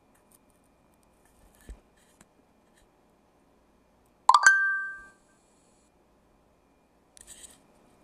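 A single sharp clink that rings briefly on two pitches and fades within about half a second, with a soft thump before it and a short rustle near the end.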